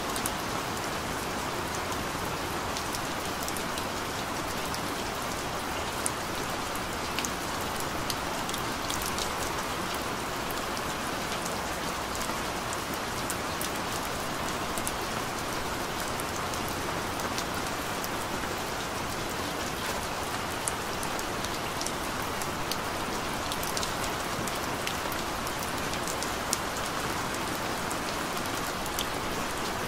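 Gentle rain falling steadily, with sharp ticks of single drops landing close by scattered throughout.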